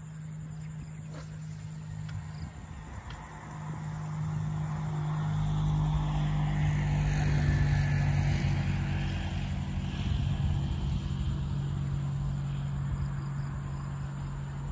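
A motor engine humming steadily at an even pitch, growing louder about four seconds in and easing off a little toward the end.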